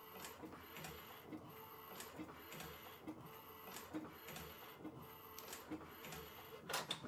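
Epson EcoTank ET-8550 inkjet printer printing with its lid open: the printhead carriage runs back and forth with a quiet, even whir and soft ticks about twice a second. A brief louder noise comes near the end.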